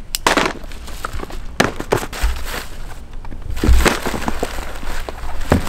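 Packing paper and cardboard rustling and crinkling as a shipping box is unpacked, in quick irregular crackles, with two dull low bumps in the middle.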